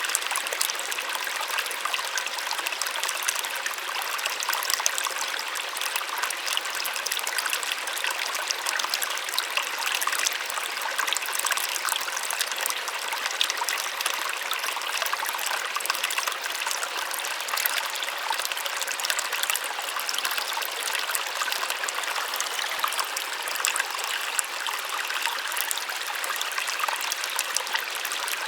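A small waterfall splashing and trickling steadily, a soft even rush of water with fine splashes and no low rumble.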